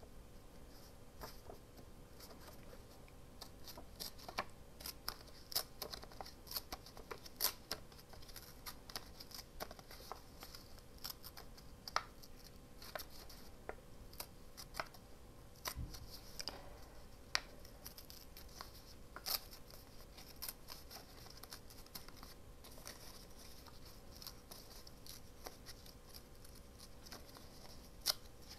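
Printed paper being torn by hand in short, irregular rips and crackles, with the rustle of the paper being handled between tears.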